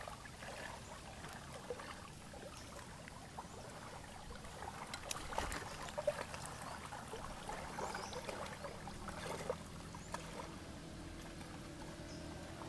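Lake water lapping and trickling at the shoreline, with a few small clicks scattered through. A faint low steady drone comes in about ten seconds in.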